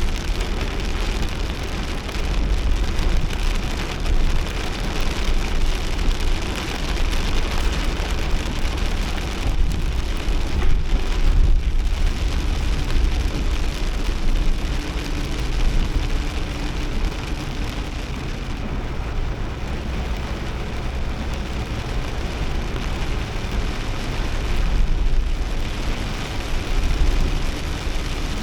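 Heavy downpour pelting a Nissan Kix kei SUV while it is driven, a dense steady rush of rain over the deep rumble of the car and road.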